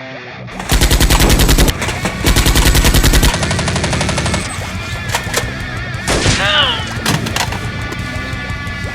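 Two bursts of rapid automatic gunfire, each lasting about a second, with a short gap between them, followed by background music.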